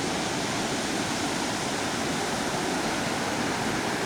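Sea surf washing onto the beach: a steady rushing hiss.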